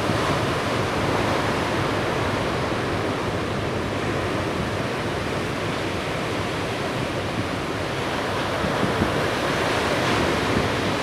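Ocean surf: large waves breaking and white water rushing, a steady wash of noise.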